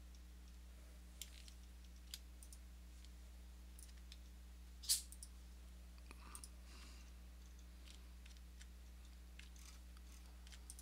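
A few sparse, faint computer mouse clicks, the strongest about five seconds in, over a low steady hum.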